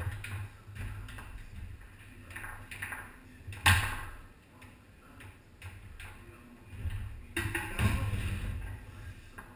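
Foosball being played on a Tornado table: sharp clacks and knocks of the ball being struck by the rod men and rebounding off the table. The hardest hit comes about four seconds in, and a busy run of knocks follows near the end.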